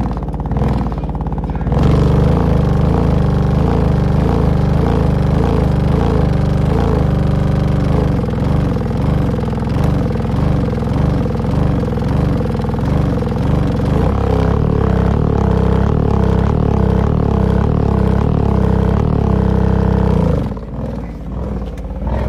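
A subwoofer playing loud, heavy bass with wavering tones above it. The bass pattern changes about two seconds in, again around eight and fourteen seconds, and drops away near the end.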